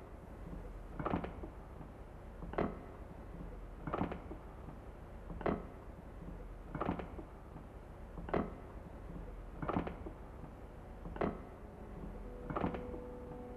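Slow, regular thuds, one about every one and a half seconds, over a low steady hum; held musical tones come in near the end.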